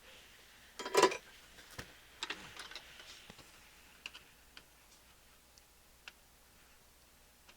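Sharp small clicks and ticks of hand tools and parts being handled while fitting replacement transistors into a receiver's circuit board: a loud cluster of clicks about a second in, a run of lighter clicks over the next two seconds, then a few isolated ticks.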